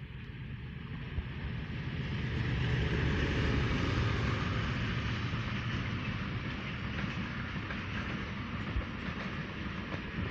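Passenger train passing close by on the main line. The diesel locomotive grows louder and is loudest about three seconds in as it goes past. A long string of passenger coaches then runs by with steady wheel-on-rail rumble and a few clicks over the rail joints.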